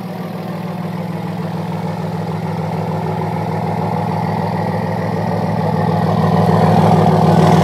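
2006 Dodge Ram 2500's 5.9-litre Cummins common-rail turbo-diesel idling steadily, heard out of its tall exhaust stacks, getting gradually louder as the microphone nears the stacks.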